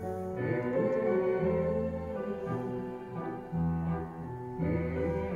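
Orchestral music: bowed strings over held bass notes, a song recording's instrumental passage played back through a tube (valve) audio set.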